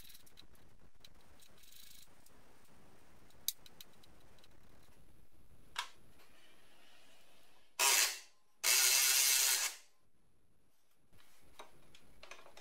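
Tools at work unbolting a steering box: a few light metal clicks, then two short, loud mechanical bursts, the second lasting about a second.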